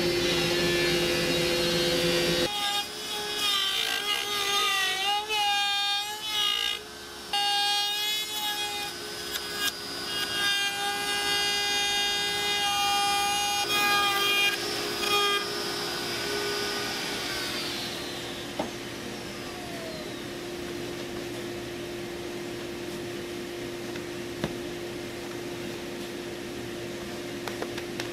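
DeWalt compact router running as it cuts along the edge of a reclaimed white pine board, its whine wavering and dipping as the bit bites into the wood. About two-thirds of the way through it is switched off and spins down, leaving a quieter steady hum.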